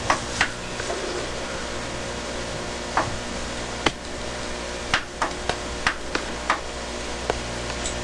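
A metal-tipped 0.5 mm mechanical pencil writing on paper, its tip striking the page in about a dozen sharp, irregular ticks, bunched together between about five and seven seconds in. Under it runs a steady hiss and hum from the VHS tape recording.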